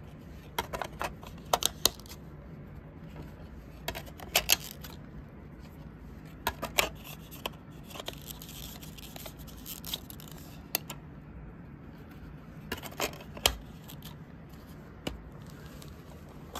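Hands handling a fold-out DVD box set case with clear plastic disc trays: clusters of sharp plastic clicks and taps every few seconds, with some soft rubbing and sliding between them.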